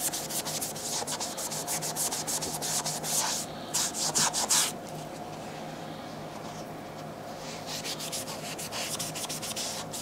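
A small hand brush scrubbing the fabric upper of a sneaker in quick back-and-forth strokes, several a second, for about four and a half seconds. After a few seconds' pause, fainter rubbing starts again near the end.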